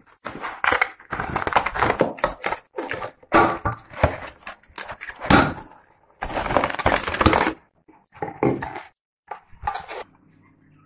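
Plastic cling film being pulled off its roll, crinkled and pressed over a bowl of dough to seal it while it rises: a run of irregular crinkling rustles that stops shortly before the end.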